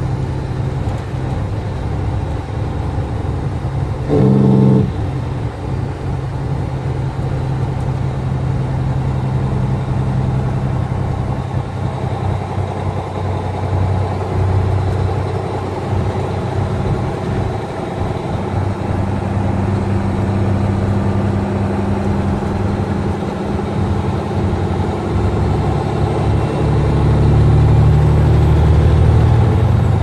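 Semi truck's engine droning steadily, heard from inside the cab while driving, its pitch shifting a few times and growing louder near the end. A short, louder tone sounds once about four seconds in.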